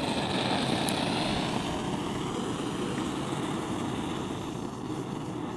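Vintage brass liquid-fuel blowtorch burning, its flame giving a steady rushing noise.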